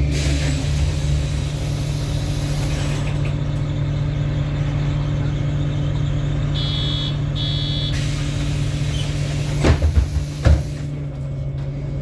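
MAN NL293 Lion's City city bus under way, heard from inside the passenger cabin: the diesel engine's steady drone over road rumble. A short double electronic beep comes a little past halfway, and a couple of loud knocks jolt through near the end.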